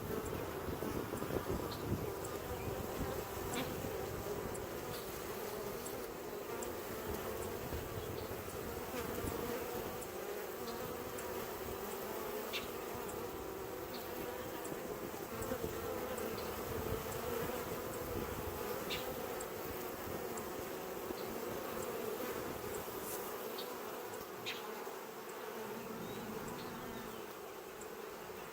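Steady buzzing hum of a busy honeybee colony at the hive entrance, many worker bees flying in and out: the sound of a strong colony in full foraging activity.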